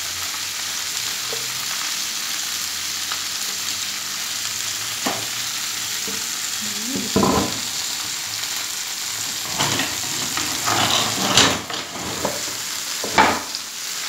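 Grilled meats, sausages and melted cheese sizzling steadily on a hot black griddle tray. Over the last few seconds there are several knocks and scrapes as the metal tray is handled and set into its wooden serving board.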